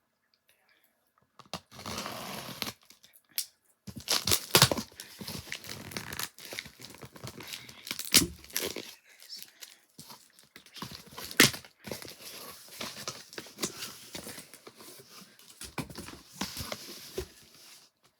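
A package being cut and torn open by hand: irregular tearing and crinkling of packaging, with a few sharp knocks about four, eight and eleven seconds in.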